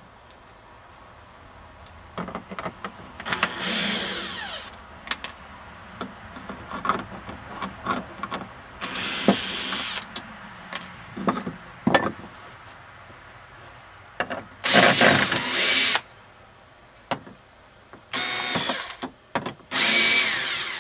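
Cordless screw gun backing screws out of a small wooden roof frame in five short bursts of about a second each. Between the bursts come clicks and knocks of the tool and wood pieces being handled.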